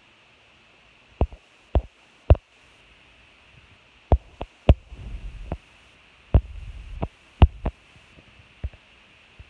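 A series of about ten dull, sharp thumps and knocks, some coming in quick pairs, with two short stretches of low rumbling between them.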